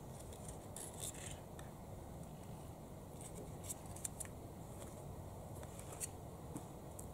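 Table knife scraping strawberry jam out of a small jar and spreading it on a crusty bread roll: a scatter of short scrapes and clicks, the sharpest about four seconds in, over a faint steady outdoor background.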